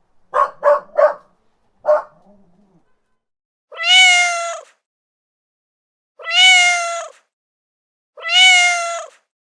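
A dog barks four short times, three in quick succession and then one more. A domestic cat then meows three times, each meow about a second long, with a pause of a second or two between them.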